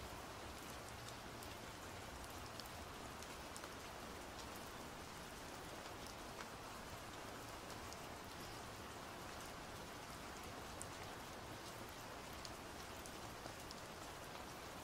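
Soft, steady rain, with scattered single drops ticking.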